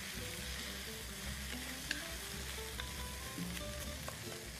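Sliced white and red onions sizzling as they fry in oil in a pot, stirred with a spatula, with a few light scrapes and clicks of the spatula on the pot; the onions are still pale, at the start of sweating them down for onion soup.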